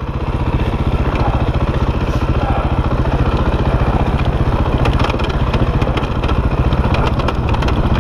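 KTM enduro dirt bike engine running steadily at low speed as the bike picks through long grass, with light clatter from the bike over rough ground in the second half.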